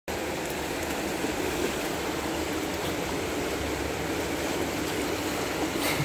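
Shallow rocky creek running, a steady rush of water over stones.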